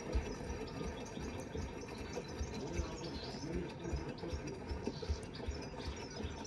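Gorenje WA65205 front-loading washing machine mid-wash: water sloshing in the turning drum, with dull low thumps every half second or so.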